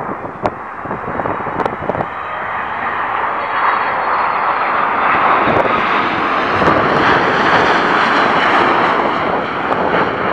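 Boeing 787-8 airliner on final approach, its turbofan engines' noise swelling as it passes close and loudest in the second half, with a faint high whine over the roar.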